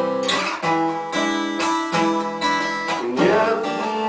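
Music between sung lines of a song: acoustic guitar strumming chords, a fresh chord about every half second.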